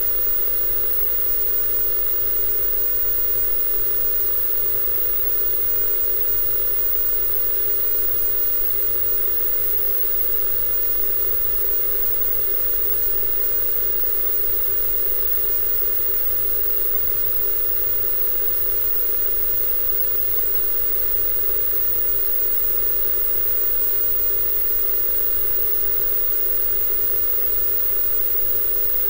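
Analog television static: a steady hiss with a low hum underneath, unchanging throughout.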